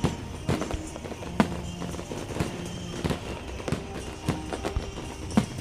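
Aerial fireworks going off: an irregular run of bangs and crackles, the loudest about a second and a half in, with music playing faintly underneath.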